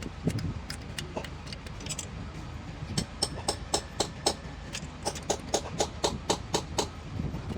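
Hammer blows on metal: a few scattered strikes, then a quick regular run of about four blows a second, each with a short metallic ring, over a steady low rumble.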